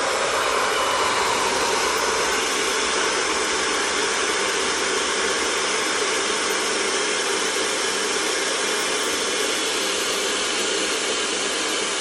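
VS Sassoon handheld hair dryer running with a steady, even rush of air, its nozzle cupped by a hand against an inflatable toy's valve, blowing air in to inflate it.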